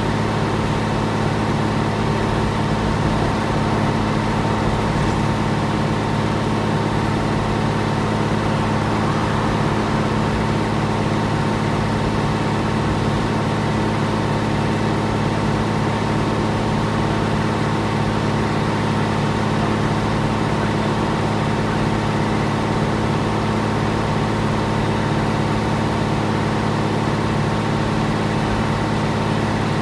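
Scania L113CRL bus's rear-mounted 11-litre six-cylinder diesel idling steadily, heard from inside the passenger saloon, with an even low drone and a faint steady whine that do not change in pitch.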